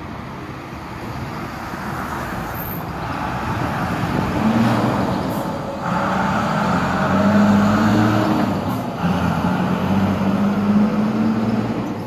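Fire engine's diesel engine pulling away and accelerating, its engine note stepping up in pitch from about four seconds in and loudest in the middle, with road noise.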